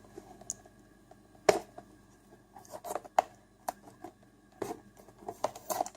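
Hands opening a small model-railway wagon box: scattered clicks, taps and rustles of cardboard and plastic packaging, with a few sharper ticks spread through.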